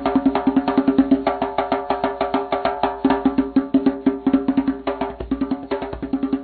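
Upbeat music led by a fast, even run of struck notes over a steady low note.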